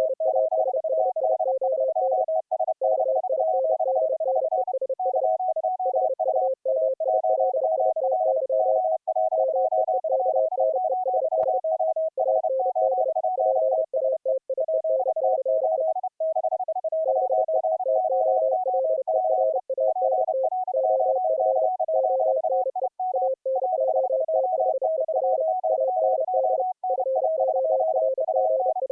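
Morse code (CW) tones at three different pitches, keyed on and off at the same time so their dots and dashes overlap. Several operators are sending at once, their code audio mixed together.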